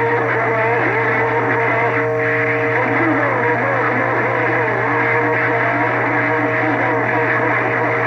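CB radio receiver full of overlapping transmissions: steady heterodyne whistles over a hum and garbled, distorted voices that cannot be made out, the sign of several stations keying up on the channel at once.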